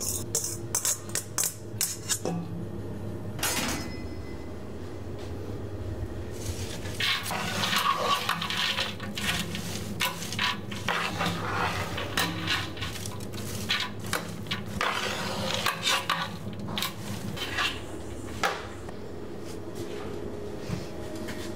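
Diced carrots and onions being stirred in a large stainless steel stock pot, a metal utensil scraping and clattering against the pot with a run of sharp clicks. The stirring is dense through the middle and thins out near the end.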